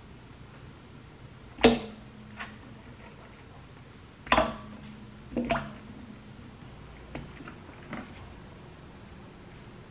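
A stainless steel bowl of water knocked and handled in a sink while blueberries are rinsed: a few sharp clunks, each leaving a short metallic ring, with small watery splashes, then a couple of lighter taps.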